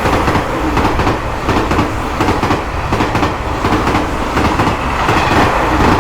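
A train running past: a steady, loud rumble of wheels on rails with quick clicking over the rail joints.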